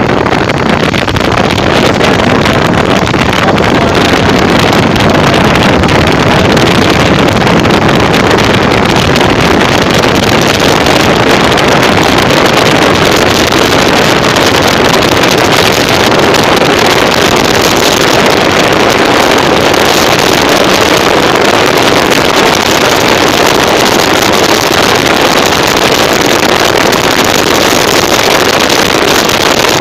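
Bajaj Pulsar 150's single-cylinder engine running at speed, under a loud, steady rush of wind over the microphone.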